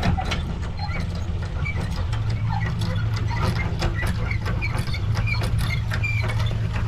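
A steady low engine hum that grows stronger about two seconds in, with rapid clicks and clatter over it.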